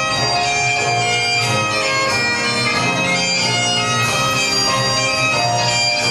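Highland bagpipe music playing for the dance: a chanter melody over steady, unbroken drones.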